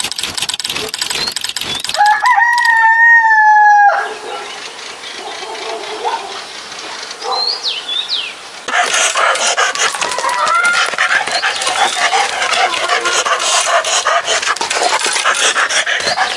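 A rooster crows once, a single long call starting about two seconds in and lasting about two seconds. A few short bird chirps follow. From about nine seconds a dense crackling noise sets in and continues.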